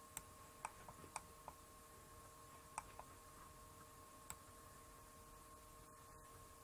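Faint computer mouse clicks, about eight of them scattered over the first few seconds and none after, over near-silent room tone with a faint steady electrical hum.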